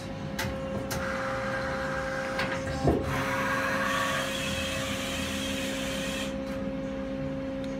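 Powered-up Hwacheon Hi-Eco 31A CNC turning center humming steadily at idle, its spindle and chuck at rest. A single knock comes about three seconds in, and a hiss rises and falls over the middle part.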